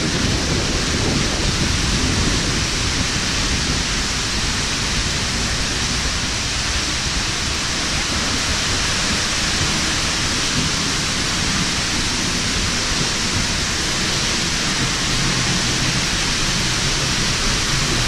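Seljalandsfoss waterfall heard close up: a loud, steady rush of falling water and spray.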